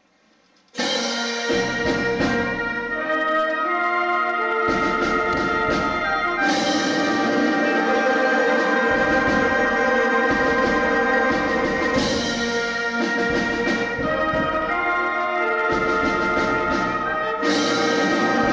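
Concert band begins playing about a second in, with loud sustained brass chords over woodwinds. It swells with a fresh sharp accent every five to six seconds.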